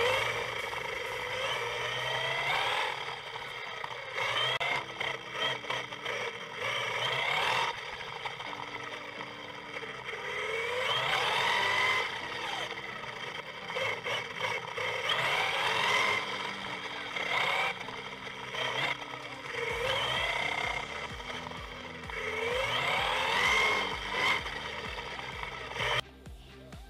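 Radio-controlled truggy's motor, heard from a camera mounted on the car, revving up and easing off again and again as it drives laps: a whine that rises and falls every couple of seconds. Background music plays underneath. The motor sound cuts off about a second before the end.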